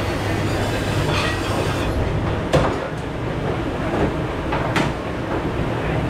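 Commercial pre-rinse spray hose hissing over a steady machine drone until about two seconds in, when the spray stops. Then two sharp clanks of dishware being handled in the stainless dish pit.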